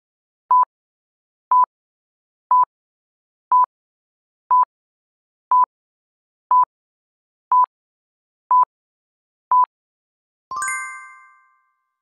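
Quiz countdown-timer sound effect: ten short, identical electronic beeps, one a second, then a bell-like chime near the end that rings out for about a second, signalling that time is up.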